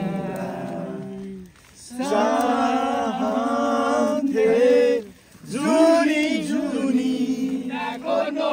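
A group of men singing together unaccompanied, on long held notes, breaking off briefly twice.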